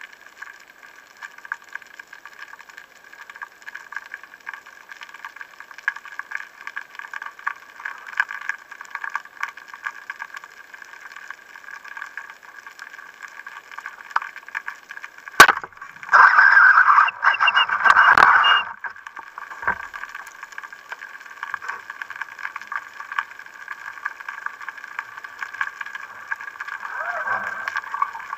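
Underwater hiss, then a single sharp crack about halfway through as a Mares Viper Pro 110 rubber-band speargun fires. A loud burst of rattling noise follows for about two and a half seconds.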